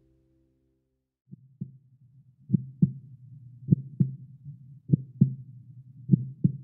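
Heartbeat-like sound effect of an outro animation: low double thumps, a pair about every 1.2 seconds, over a low hum, starting about a second and a half in after a near-silent gap.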